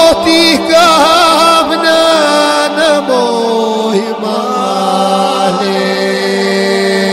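Albanian saze folk ensemble music from the Korçë–Prespa region. A quick, ornamented melody runs for about three seconds, then a note slides down and long held notes sound over a steady drone.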